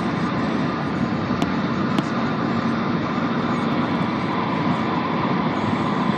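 Steady road and engine noise inside a moving car's cabin, with two faint clicks about one and a half and two seconds in.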